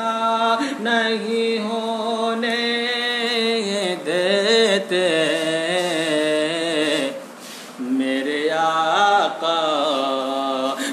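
A man singing a naat, an Urdu devotional poem, solo with no instruments: long held notes with ornamented glides, and a short break for breath about seven seconds in.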